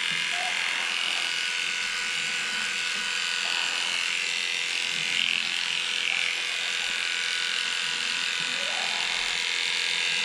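Cordless electric dog grooming clipper running steadily as it shaves through a pug's coat.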